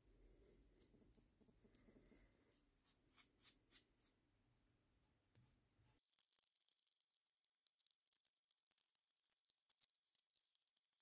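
Faint brush strokes and light clicks as paint stripper is brushed onto the hand press's painted metal frame. About six seconds in this gives way to a faint, high, fine crackling and fizzing as the stripper works on the old paint and it starts to lift.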